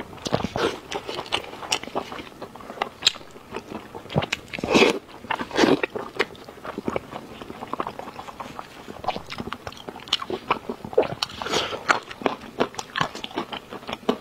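Close-miked eating of braised pork knuckle: biting, chewing and wet smacking of skin and meat, a fast run of small clicks. There are a few louder moments about five seconds in and again past eleven seconds.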